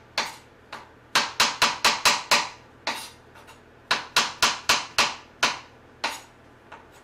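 Kitchen knife slicing button mushrooms on a plastic cutting board: quick runs of sharp taps, about four a second, as the blade knocks through onto the board, in two bursts of six or seven strokes with short pauses between.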